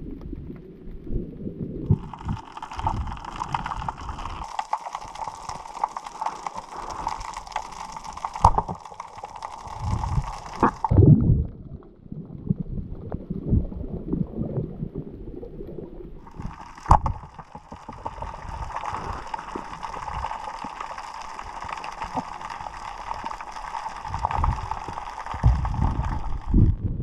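Underwater water noise heard through a diving camera's housing: low gurgling rumbles and bumps of water movement. Over it a steady high hum comes in twice, each time for several seconds, and cuts off abruptly, with a few sharp clicks.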